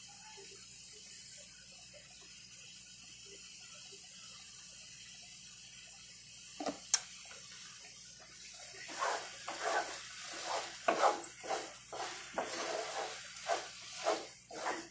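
A wooden spatula stirring and scraping a frying pan of eggplant and tomato. After a faint steady hiss and a single sharp tap, uneven scrapes and knocks about every half second start about halfway through.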